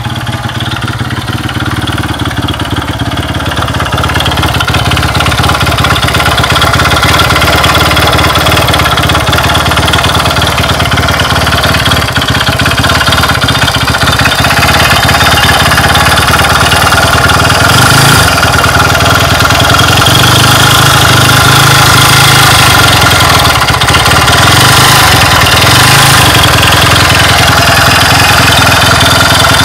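Honda Ape motorcycle's small single-cylinder four-stroke engine running at a steady speed, growing louder over the first several seconds. The owner records it because it is making an abnormal noise.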